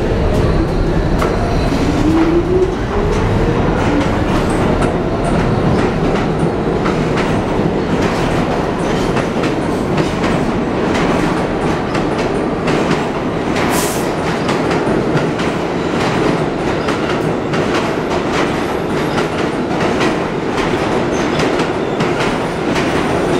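R46 subway train pulling out of the station. Its traction motors whine, rising in pitch over the first few seconds as it accelerates, then its wheels clatter steadily over the rail joints as the cars run past, with a sharp squeal about halfway through.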